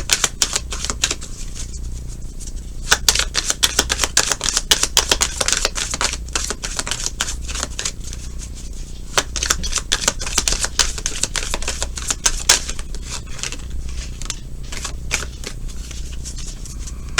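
Tarot cards being shuffled by hand: a dense, irregular run of quick card clicks and flicks throughout, over a steady low hum.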